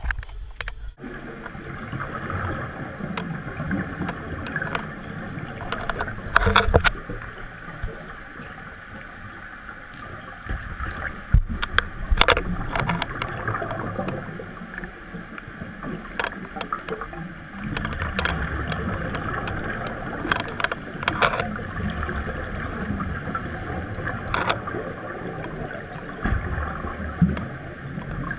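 Muffled underwater sound of scuba divers breathing through regulators, with irregular louder bursts of exhaled bubbles gurgling up.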